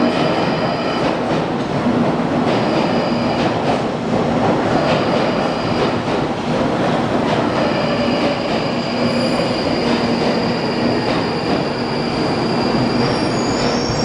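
London Underground Northern line 1995-stock train running: a steady rumble of wheels on rails with on-and-off high electric whines, and a high whine rising near the end.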